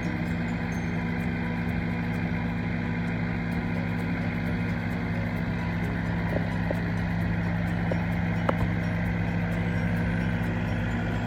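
A large engine running steadily at an even speed, with a light knock about eight seconds in.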